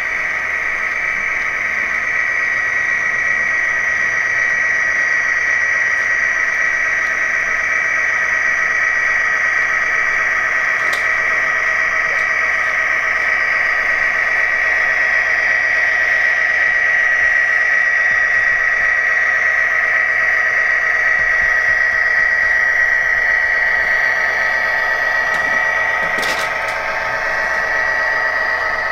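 Sound decoder of a Walthers HO EMD SD60 model locomotive playing its diesel engine sound through the model's small speaker, a steady running note with a high whine on top. A single sharp click comes a few seconds before the end.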